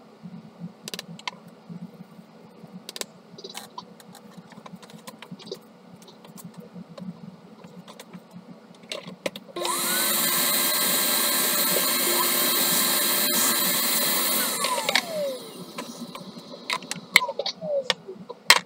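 Vacuum cleaner switched on about halfway through, its motor whining up to speed, running steadily for about five seconds, then switched off and winding down with a falling whine. Before it, light clicks and taps of plastic cartridge parts being handled.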